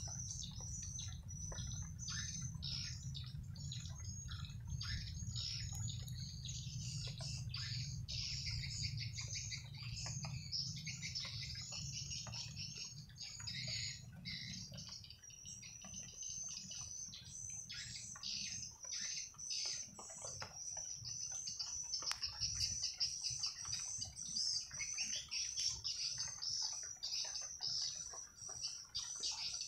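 Dense, continuous high twittering of many edible-nest swiftlets. The short chirps overlap without a break, over a low rumble that is stronger in the first half.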